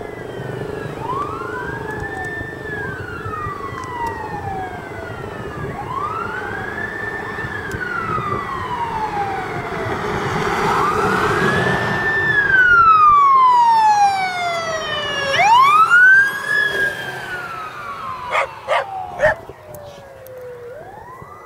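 Fire apparatus sirens wailing in slow rising-and-falling cycles as the fire truck and squad approach and pass, with the rumble of the heavy trucks loudest about two-thirds of the way in. Near the end come a few short, sharp blasts, like horn taps.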